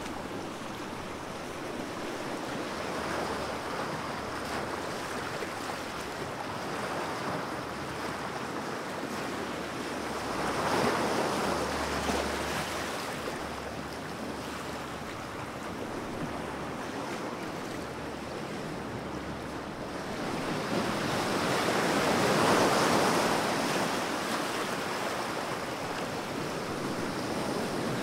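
Ocean surf: a steady wash of waves, with two louder swells breaking about ten seconds apart.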